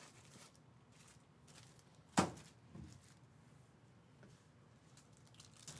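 Quiet handling of foil trading card packs on a table mat, with light clicks and one sharp tap about two seconds in.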